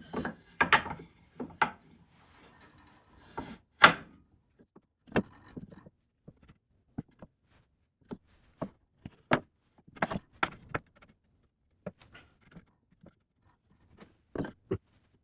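Irregular wooden knocks and clunks as pieces of scrap wood and plywood are handled, set down and fitted against each other, the loudest knock about four seconds in.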